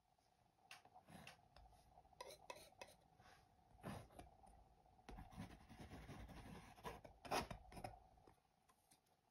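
Metal painting knife scraping and tapping thick oil paint onto a stretched canvas: a run of faint short strokes, with longer dragging scrapes in the second half and one sharper stroke near the end.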